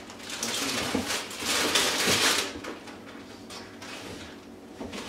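Rustling and crinkling of plastic grocery packaging being handled, strongest for about two seconds near the start, with a couple of soft knocks.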